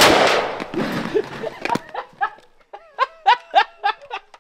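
The last shots of a full-auto AK-47 burst ringing out and dying away over the first half-second, a single sharp click near two seconds in, then a man laughing in quick, evenly spaced pulses.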